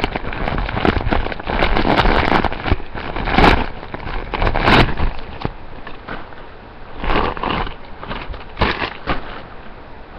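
Clothing fabric and clear plastic wrapping rustled and crinkled by hand close to the microphone, in a run of loud bursts that are strongest in the first half.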